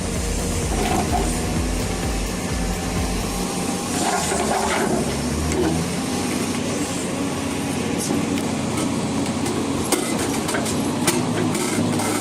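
Heavy vehicle engine running steadily under a low drone, with a few sharp clanks in the second half.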